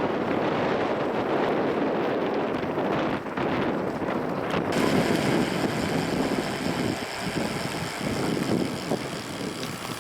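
Wind buffeting the microphone in a steady rush, as from riding along; about halfway through a fainter high hiss with a few steady high tones joins in.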